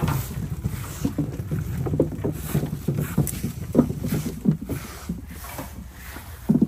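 Irregular soft knocks of peaches being dropped and handled on a fruit tray, over a steady low rumble.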